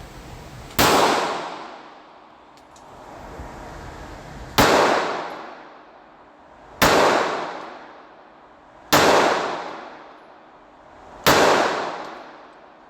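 Five single shots from a Canik Mete MC9 Prime 9mm pistol, fired slowly two to four seconds apart, each sharp crack ringing away over about a second and a half.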